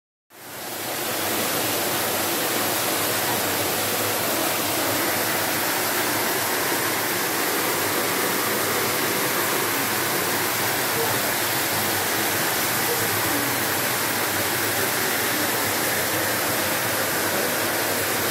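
Steady rushing of water from a pool's cascade spout pouring into the pool and the whirlpool jets bubbling, fading in over the first second.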